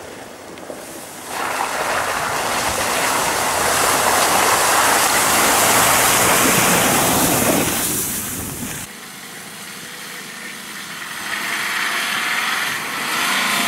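Mitsubishi L200 pickup driving through slushy, water-filled mud ruts, its engine and the splashing of mud and water growing loud as it comes close. The sound cuts off sharply about nine seconds in. What follows is a Nissan Patrol's engine pulling up a snowy slope, getting louder near the end.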